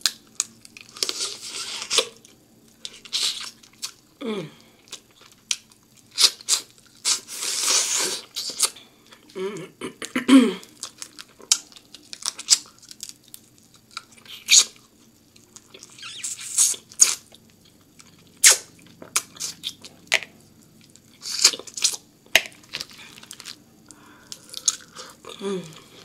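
Mouth sounds of eating crab from a seafood boil: slurping and sucking juice and meat from the shells, with wet chewing and crunching in irregular bursts. A few short falling vocal sounds come in between.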